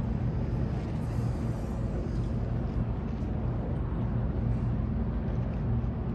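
Steady low engine drone of the cruise ship Star Legend passing close by on the river, over a background hum of outdoor city noise.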